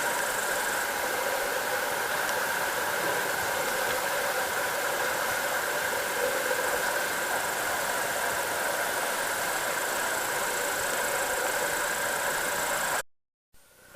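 A steady hiss with the constant high buzz of field insects over it. The sound cuts off to silence about a second before the end.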